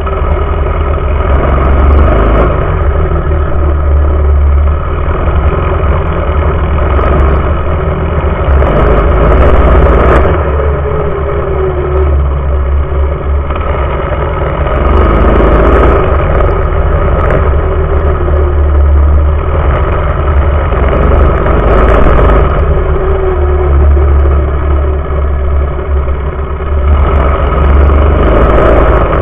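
Mini bike's small engine running hard at racing speed, its pitch rising and falling as the throttle opens and closes. Heavy wind and ground rumble from a camera mounted low on the frame runs under it.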